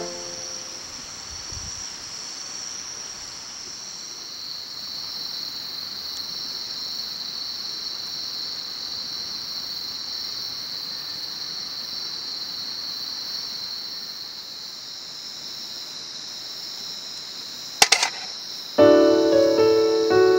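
Insects chirring steadily in a high, even drone over a faint steady hiss. A sharp click sounds about 18 seconds in, and piano music comes back just after.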